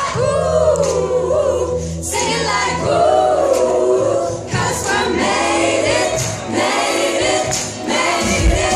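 Female pop vocal group singing together live into microphones over amplified music, with a strong beat coming in near the end.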